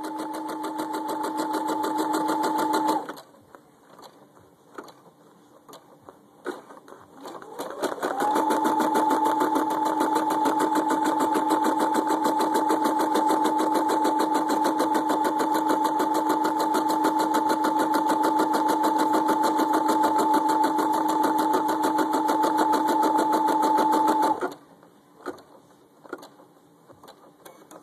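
Brother sewing machine stitching embroidery letters: rapid, even needle strokes over a steady motor tone. It stops about three seconds in, then after several seconds of light clicks starts again with a rising tone. It runs steadily until it stops a few seconds before the end.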